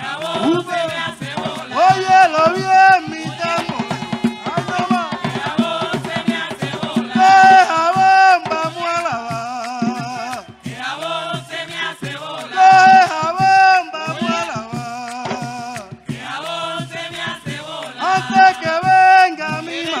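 Live bullerengue sentao: voices singing a repeated phrase over hand drums and percussion.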